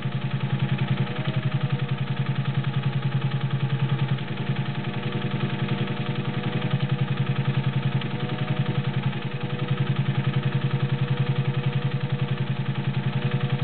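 Singer 201-2 sewing machine with its potted direct-drive motor running steadily, the needle stitching through 4-ounce garment leather in a fast, even rhythm of stitches. The beat eases briefly about four seconds in, then runs on steadily.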